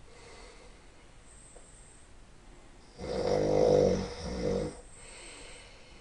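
A man snoring in his sleep: quiet breathing, then one loud snore about three seconds in that lasts under two seconds and dips briefly in the middle, then quiet breathing again.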